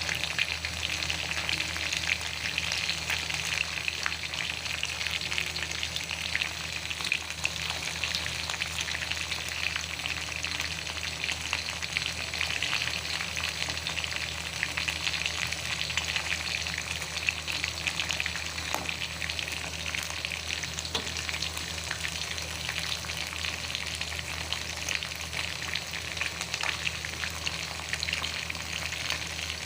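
Food frying in hot oil: a steady sizzle full of fine crackles, over a steady low hum.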